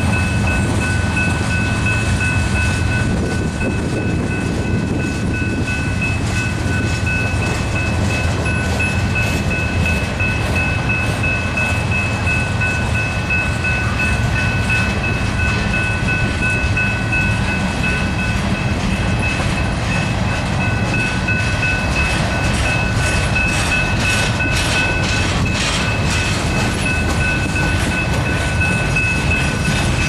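Freight cars of a long manifest train rolling past: a steady loud rumble of steel wheels on rail, with clacking over the rail joints that grows busier a little past the middle. A steady high-pitched tone sounds over the rumble.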